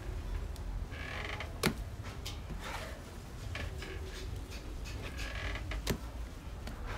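A plastic bowl scraping and creaking as it is worked through stiff fermented corn dough in a wooden trough, with two sharp knocks about four seconds apart.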